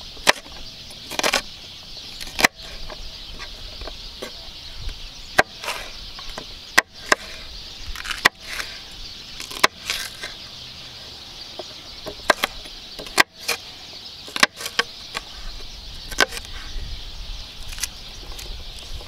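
Chef's knife slicing red pepper strips on a wooden cutting board: a dozen or so sharp knocks of the blade striking the board, irregularly about a second apart, over a steady high insect hiss.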